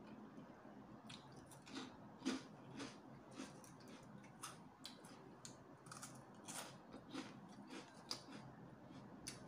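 A person eating with chopsticks: quiet chewing with a string of irregular light clicks and taps as food is picked from the plate.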